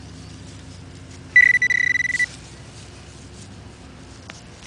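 Handheld metal-detecting pinpointer giving a steady electronic alert tone for just under a second, about a second and a half in, as it is held over a target in the dig hole; a faint tick follows near the end.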